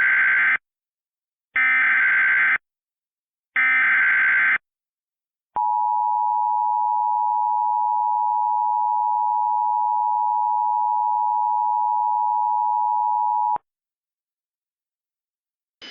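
Emergency Alert System tones: three one-second bursts of SAME digital header data, about two seconds apart, then the steady two-tone EAS attention signal for about eight seconds, which cuts off suddenly. These tones mark the start of a new emergency alert, coming before its spoken message.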